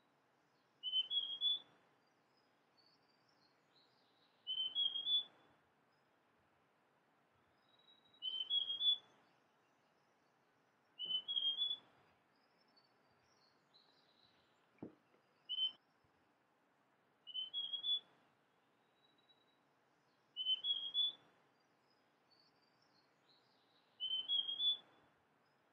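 Male large niltava singing: a short phrase of three or four clear notes stepping upward in pitch, repeated about every three and a half seconds. Faint higher chirps from other birds come between the phrases, and a single sharp tick falls about midway.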